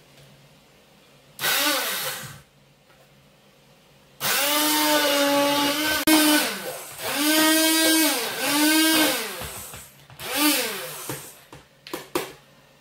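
Hand-held stick blender puréeing cooked apples and banana in a plastic jug: several bursts of motor whine of differing length, the pitch rising as each starts and falling as it stops.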